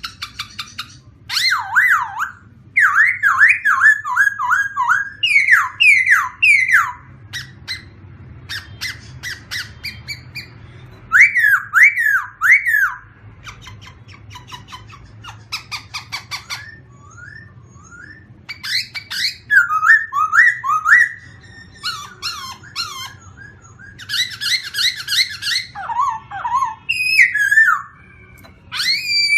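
A songbird singing loud phrases of rapid, repeated downward-sliding whistled notes, with pauses of a few seconds between phrases. A faint low hum runs underneath.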